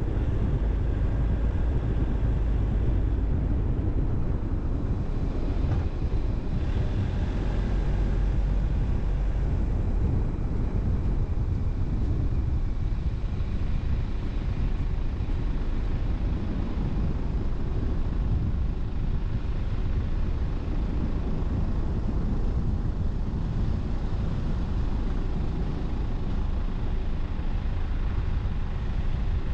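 A car driving slowly along a road, heard as a steady low rumble of engine and tyre noise.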